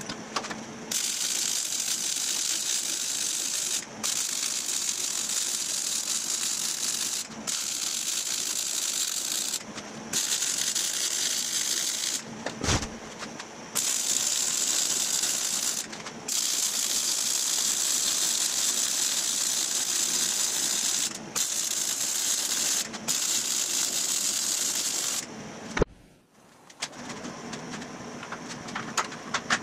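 MIG welder laying a series of beads on a steel cross-member: a steady crackling hiss that starts and stops about eight times, each weld lasting two to five seconds with short breaks between. Near the end a sharp knock, then quieter light clicks and taps of metal being handled.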